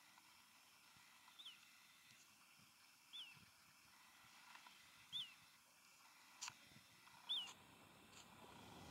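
A bird calling four times, about two seconds apart, each a short high note that falls in pitch, over near silence. A faint click comes about six and a half seconds in.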